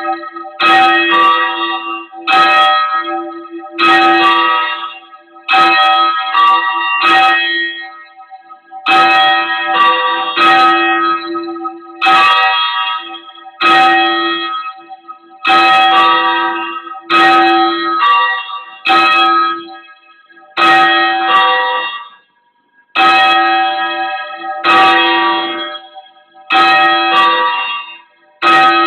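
Church bells rung at bell-ringing practice, loud, one strike after another in quick runs with short breaks between them.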